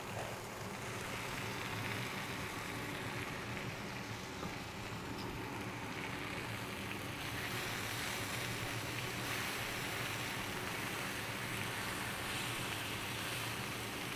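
Chicken pieces sizzling steadily as they sear on a hot flat-top griddle.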